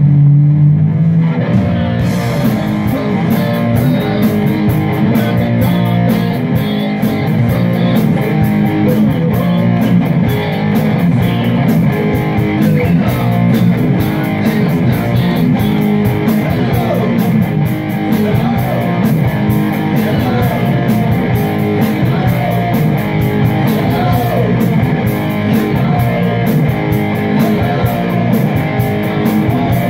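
Live rock band playing through amplifiers: electric guitars, bass guitar and a drum kit, with the cymbals coming in about two seconds in.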